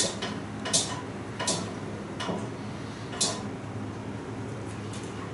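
Light metallic clinks and taps of tools and hardware being handled, about one a second for the first three seconds, the last a sharp high tick, over a steady low hum.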